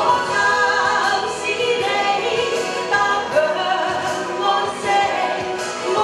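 A woman singing into a microphone, with musical accompaniment.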